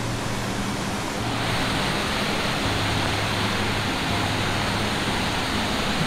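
Mountain valley stream rushing over rocks at the Yongso pool: a steady, loud hiss of water that grows fuller and brighter about a second in.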